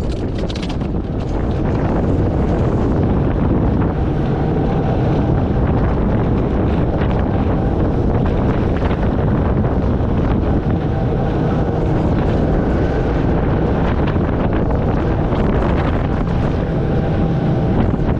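Heavy wind buffeting the microphone on a boat, with a motor running steadily underneath.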